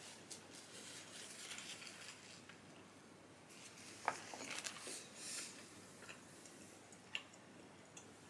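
Faint rustling and handling noises with a few light, sharp clicks, the clearest about four seconds in and another about seven seconds in.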